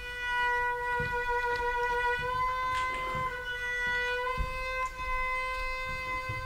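Cello playing one long, high bowed note, held steady with a slight lift in pitch about two and a half seconds in. A few soft knocks sound underneath it.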